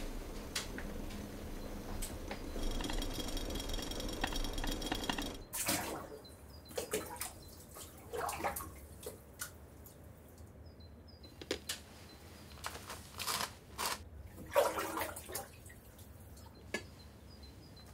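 A steady rushing noise for about the first five seconds, cut off abruptly, then scattered small splashes and drips of water as a woman washes her wet hands, skin and hair.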